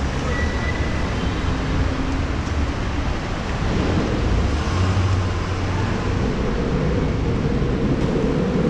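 City street traffic: a steady wash of passing cars, with a low engine rumble that grows stronger about halfway through.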